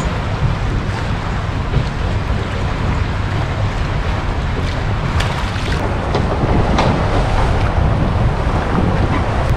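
Wind buffeting the microphone over water moving along the hull of an anchored boat: a steady rushing noise, heaviest in the low end, with a few faint clicks midway.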